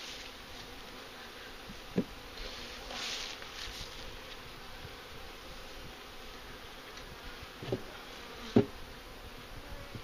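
Honeybees buzzing steadily around a freshly installed package hive. A few short knocks sound over it, one about two seconds in and two close together near the end, the last the loudest.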